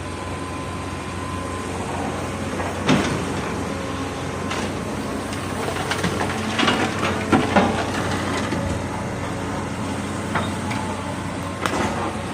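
A heavy excavator's diesel engine running steadily, with several sharp metallic clanks and knocks from the working machine, clustered a little past the middle.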